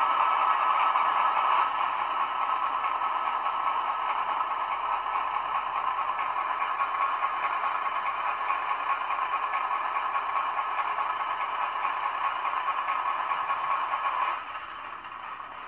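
Model locomotive sound decoder playing a Class 42 Warship diesel-hydraulic's twin Maybach engines through a small speaker. The sound drops a step about one and a half seconds in as the second engine shuts down. The remaining engine runs on steadily until it cuts off sharply near the end as engine one shuts down.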